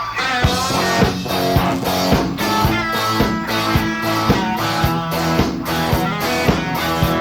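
Live rock band of electric guitars, bass guitar and drums playing the instrumental intro of a song. It is a steady beat with drum hits about twice a second under the guitar lines, starting right at the beginning.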